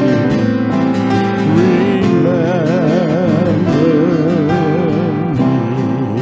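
Instrumental music: acoustic guitar accompaniment with a sustained, wavering melody line over it.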